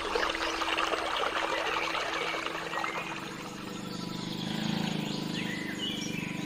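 Water running and splashing in a stream, strongest in the first three seconds; from about three seconds in a low steady hum rises under it.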